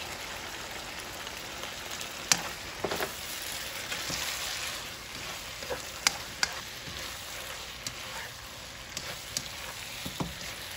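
Loofah, chicken and black fungus sizzling in a nonstick frying pan as a cornstarch, soy sauce and chicken powder slurry is poured in, over a steady hiss. The spatula clicks and scrapes against the pan several times while stirring.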